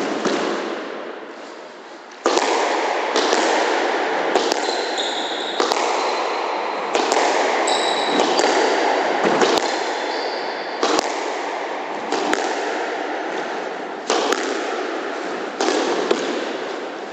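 Squash rally starting about two seconds in: the ball is struck by rackets and smacks off the walls about once a second, each hit echoing around the court. Shoes squeak on the wooden floor between shots.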